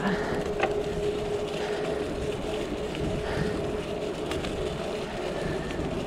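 Bicycle riding along a paved path: a steady rumble of wind and tyre noise, with a few light clicks and rattles from the bike.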